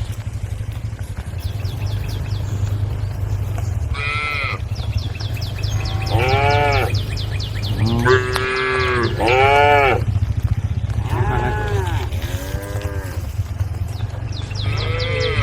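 Cattle mooing: about seven drawn-out calls, one after another, rising and falling in pitch, over a steady low hum.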